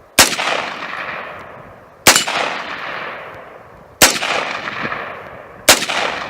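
Four AR-15 rifle shots, about two seconds apart, each followed by a long echoing tail.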